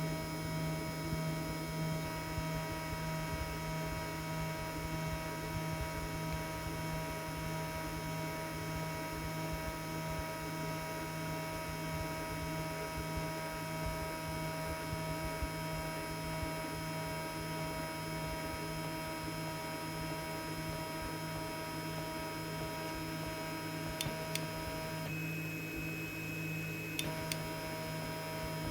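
3D printer running with a steady hum and whine from its fans and stepper motors. A couple of clicks sound near the end, and the tone changes briefly just after them.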